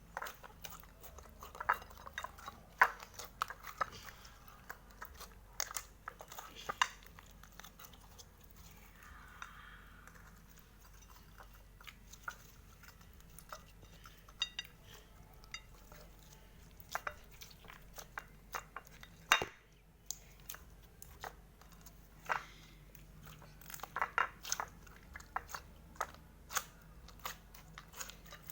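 Hands squeezing and stretching slime, giving irregular wet clicks and small pops, with quieter gaps about a third of the way in and again about two thirds of the way in.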